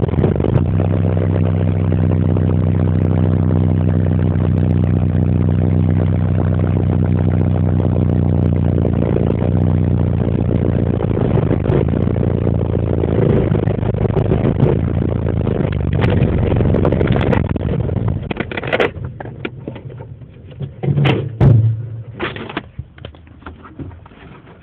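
Engine of a moving vehicle heard from inside the cabin, a steady low hum with road noise. About three quarters of the way through it dies down, and a few sharp knocks and clatters follow near the end.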